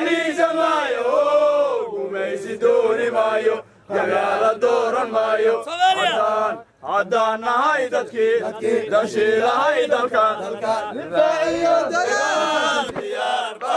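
Group of men chanting together in a sung, rhythmic call, with two short breaks partway through.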